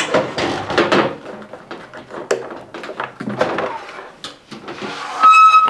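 Washing machine drum-and-tub assembly being lifted out of its cabinet: irregular knocks, clunks and scraping of the plastic tub against the cabinet and fittings, with a short high squeal near the end.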